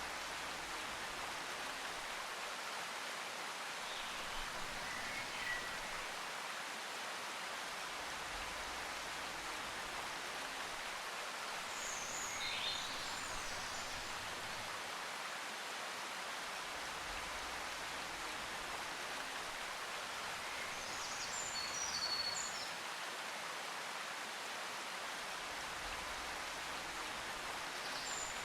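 A steady, even hiss, with short high chirps twice, about twelve and twenty-one seconds in.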